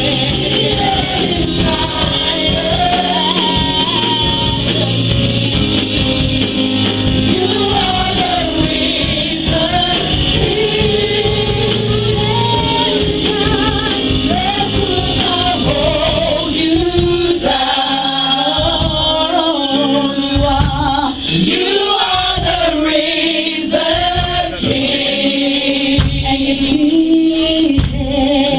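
Live gospel worship singing: a female lead singer into a microphone with backing singers, over instrumental accompaniment. The low accompaniment drops back about halfway through, leaving the voices more exposed.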